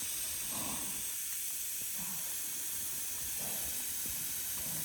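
Steady hiss of a water mister spraying a fine mist over the pig pen.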